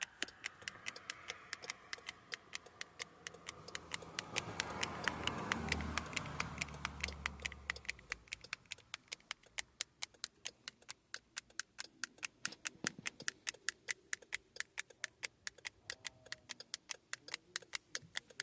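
Smart key fob's lock and unlock buttons clicking, pressed over and over in a rapid, even rhythm of about four clicks a second while the key is being programmed. A swell of rushing noise rises and falls around the middle.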